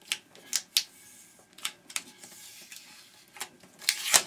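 Sharp, irregular clicks and knocks of hand-handled parts as a wired part is worked off a TV set, about eight in all, with the loudest knock near the end.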